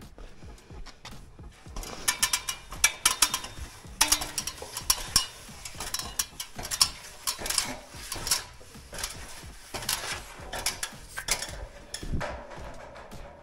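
Rapid, irregular clicking and clattering of small hard objects being handled, thickest from about two seconds in until near the end.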